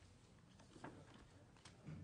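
Near silence: room tone with a low hum and a few faint clicks and rustles.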